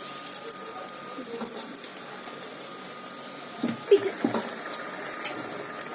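Besan-battered bread sandwiches deep-frying in hot oil in a kadhai, sizzling steadily; the sizzle comes up suddenly as a sandwich is lowered into the oil. A few knocks about two-thirds of the way through.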